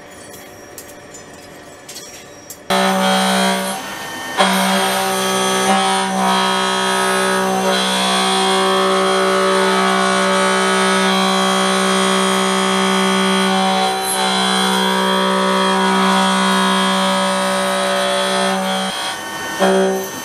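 Face mill cutting a steel block on a CNC milling machine: a loud, steady pitched tone with many overtones, starting suddenly about three seconds in after a quieter stretch with faint clicks, and breaking off briefly near the end.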